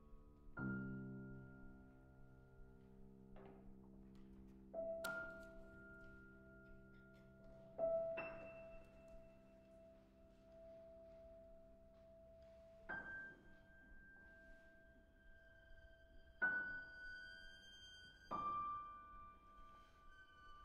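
Quiet contemporary chamber music for violin and piano: sparse piano chords and single notes struck every few seconds and left to ring, with long, steady high tones held between them.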